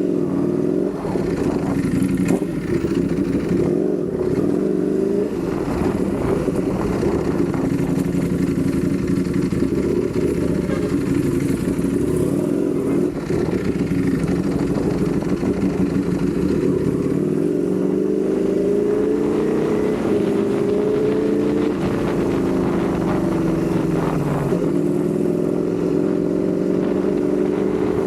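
Ducati Panigale V4 sport bike's V4 engine running under way, with a steady note that rises gradually in pitch twice in the second half as the bike picks up speed.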